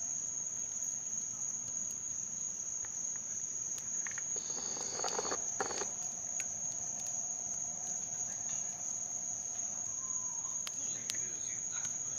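Night insects, crickets, trilling as one steady high-pitched tone, with scattered crackles and pops from a wood fire and a short burst of rustling noise about five seconds in.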